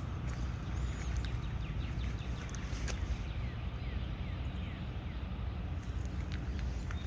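Birds chirping outdoors in a run of short, quick falling calls, over a steady low rumble.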